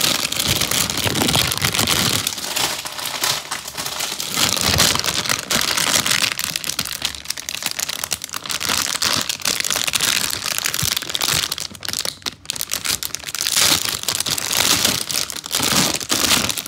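Thin clear plastic packaging bag crinkling and rustling steadily as a dinosaur-shaped push-pop fidget toy is worked out of it.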